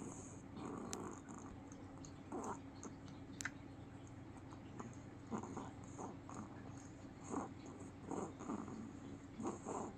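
Soft snoring in short, irregular breaths, one every second or two, over a steady low hum.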